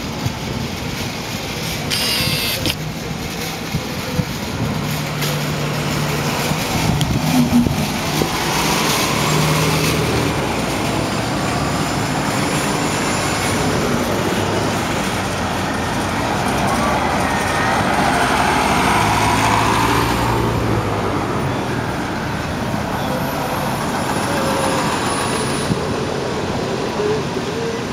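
Hybrid-electric city buses driving past at close range, engines running, with a whine that rises and falls about two-thirds of the way through as one pulls past. A brief hiss comes about two seconds in.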